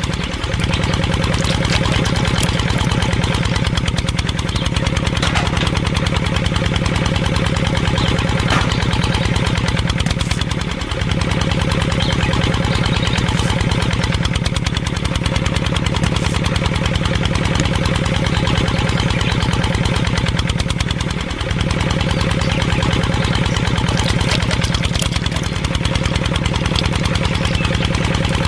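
Small single-cylinder diesel engine running steadily at idle, a fast even chug with a short dip about every ten seconds, driving a belt-driven water pump.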